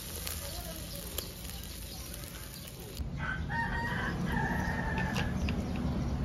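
Faint sizzling of fish on a charcoal grill with one sharp crackle about a second in, then, from about three seconds, a rooster crows once for around two seconds.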